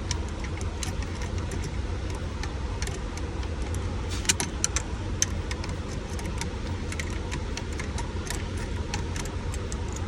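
Scattered small clicks and rattles of hand work on steering-column parts, a few sharper ones clustered about four to five seconds in, over a steady low engine rumble.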